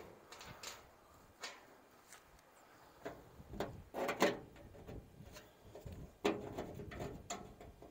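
Scattered knocks and clatters from a black diamond-plate trailer toolbox being handled as a hand works inside it. The loudest knocks come in a cluster about four seconds in, with another sharp one just after six seconds.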